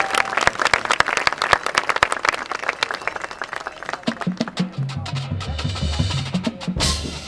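Marching band playing, led by its percussion: rapid hits all through, a low bass line stepping in about four seconds in, and a crash near the end.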